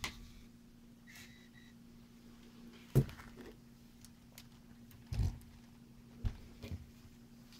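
Handling knocks from a LEGO Technic car and its controller being set down and picked up on a cloth-covered surface: one sharp knock about three seconds in, then a few duller thumps as the plastic car is tipped over onto its back. A steady low hum runs underneath.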